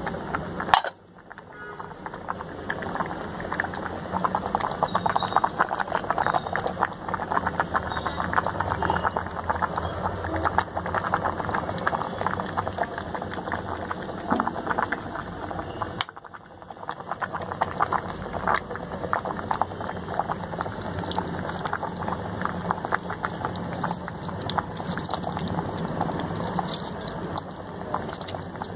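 Spring onion curry boiling in an electric rice cooker pot: dense bubbling and popping. A sharp click about a second in; the bubbling cuts out briefly there and again about halfway through, then builds back.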